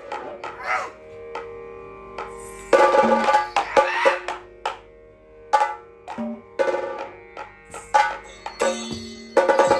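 Traditional Indian music: drum strokes and sharp struck percussion over a steady held drone, busiest about three seconds in and again near the end.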